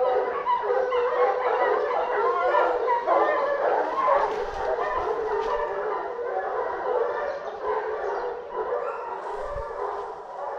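A pack of boar-hunting dogs baying together, many voices overlapping without a break, growing somewhat fainter toward the end.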